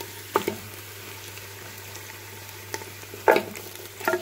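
Raw beef chunks sizzling in hot oil in a clay handi as they start to fry, a wooden spoon stirring them with a few knocks against the pot, the loudest about three seconds in.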